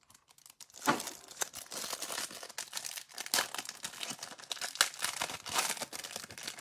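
Thin clear plastic wrapper crinkling and tearing as it is peeled off a stack of trading cards, in irregular crackles with a few sharp snaps.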